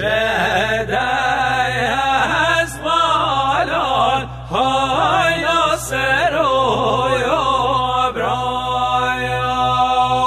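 Music: a voice singing long, wavering, ornamented melodic lines over a steady held drone.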